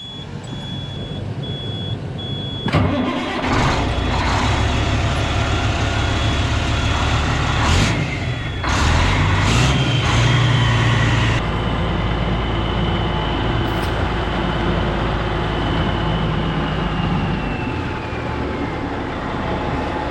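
2001 Western Star tractor's diesel engine being started: a short spell of cranking with an intermittent beep, then the engine catches about three seconds in and runs steadily.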